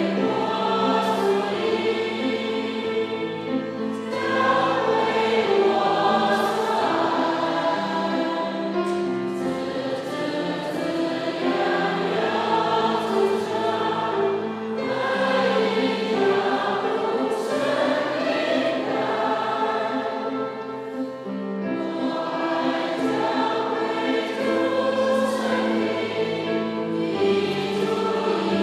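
A church congregation singing a hymn together with instrumental accompaniment, in steady held phrases.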